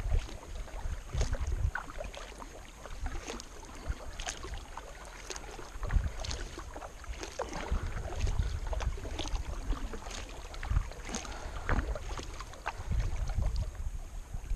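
Double-bladed kayak paddle strokes on calm river water: the blades dipping and dripping in irregular splashes, with gusts of wind rumbling on the microphone.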